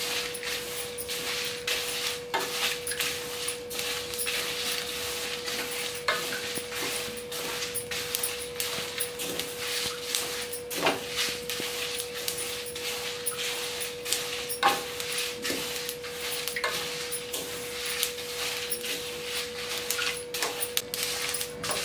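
A wooden spatula stirring niger seeds, dried red chillies and rock salt as they dry-roast in a stainless steel pan. The seeds rustle and scrape constantly, with many light knocks of the spatula against the pan and a few sharper ones. A steady hum runs underneath.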